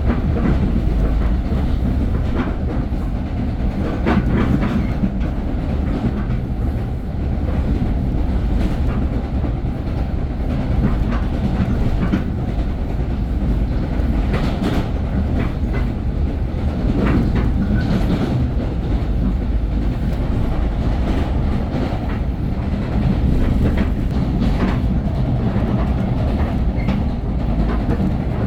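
Metro-North commuter train running along the track: a steady low rumble, with irregular clicks as the wheels pass over rail joints.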